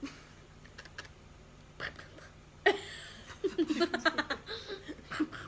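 Girls giggling in short, choppy bursts, starting about halfway through.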